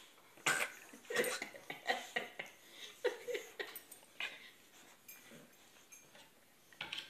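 A series of short, forced throat-clearing coughs made on purpose, about a dozen rough hacks in the first four seconds, then one more near the end.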